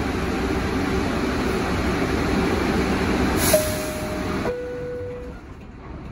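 Steady rumble inside an R62A subway car, then a short hiss and the two-tone door chime, a higher note followed by a lower one, about three and a half seconds in, signalling the doors are about to close; the car is quieter after the chime.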